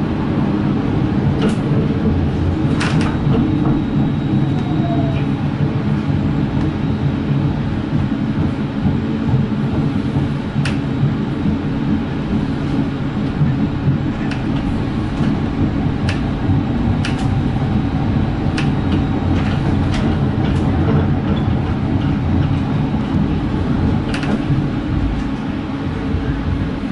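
Augsburg tram running along its track, a steady rumble and motor hum from the moving car. Sharp clicks and knocks come every few seconds.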